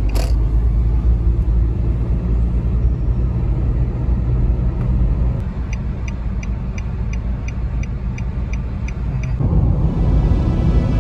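Steady engine and road rumble heard from inside a moving car's cabin. A turn-signal indicator ticks at about three ticks a second, briefly at the start and again for about four seconds in the middle. Music comes in near the end.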